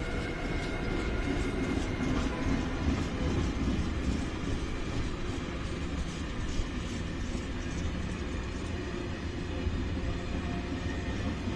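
Freight train of tank wagons rolling past: a steady rumble of steel wheels on the rail, with scattered wheel clicks. A high steady whine fades out in the first few seconds.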